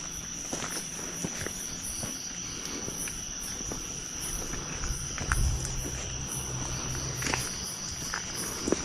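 A steady, high-pitched drone of crickets or similar insects, with scattered light clicks and a low hum that rises about five seconds in and fades out a couple of seconds later.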